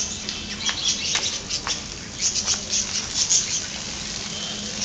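Splashy footsteps on wet paving stones, about two a second at first, over a steady hiss and a low hum.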